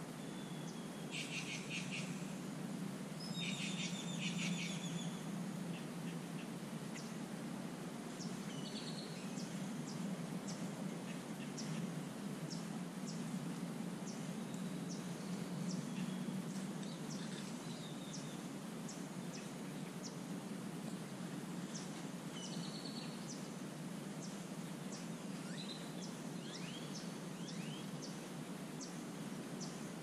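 Wild birds calling: two short rattling calls of rapid repeated notes in the first few seconds, then scattered short chirps, over a steady low background hum.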